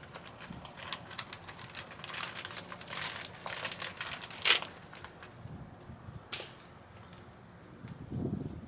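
Handling noise of a plastic bag being wrapped around an outdoor spigot: a run of crinkling clicks, with a sharp snap about four and a half seconds in and another a couple of seconds later.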